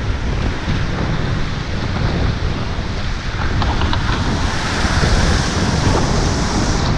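Roar of Class V whitewater rushing around a raft, with wind buffeting the microphone. A few light knocks come a little past the middle, and the hiss of spray grows louder in the second half as the raft goes into foaming water.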